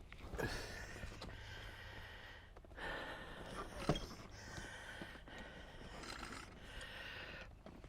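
A man breathing hard in and out, with a breath every one to two seconds while he strains with a heavy car seat, and a single knock about four seconds in.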